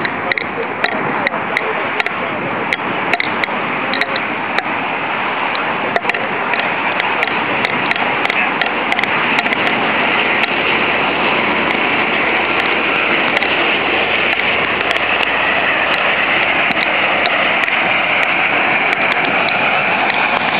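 Jet engine noise from an Alaska Airlines Boeing 737 on final approach: a steady rush that grows louder about halfway through as the airliner passes low toward touchdown. Sharp clicks are scattered through the first half.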